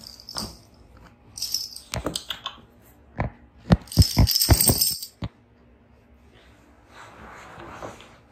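Cat-drying towel rustling and rubbing close to the microphone, with a run of sharp metallic clicks and jingles in the middle, loudest a little past halfway, from the cat's collar tag. It quietens to a faint rustle near the end.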